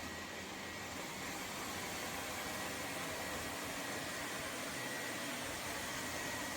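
LEFANT M210 Pro robot vacuum running with a steady whir and a faint high whine.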